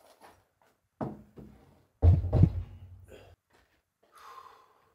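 Long wooden beam knocking and bumping as it is hauled up the tower shaft: a single knock about a second in, then a louder cluster of heavy thuds about two seconds in.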